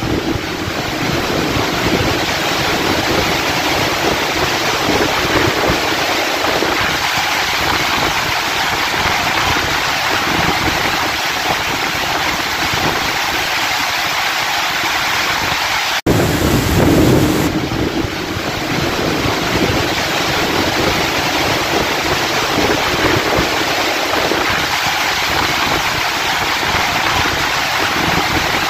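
Torrential thunderstorm rain pouring onto a road and pavement, a loud steady hiss. A brief low rumble swells in near the start and again a little past the middle.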